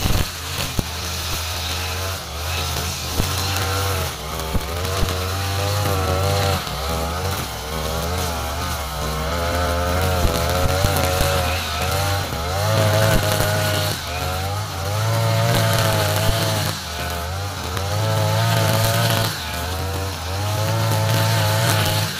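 Backpack brush cutter's small petrol engine running at high revs while its nylon trimmer line cuts grass. The engine note wavers and swells and dips every two to three seconds as the cutter is swung back and forth.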